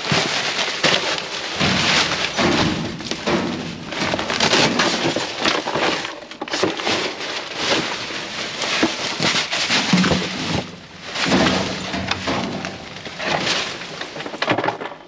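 Clear plastic trash bags crinkling and rustling as a gloved hand grabs and shifts them in a dumpster, with irregular knocks from cardboard boxes and other trash being moved.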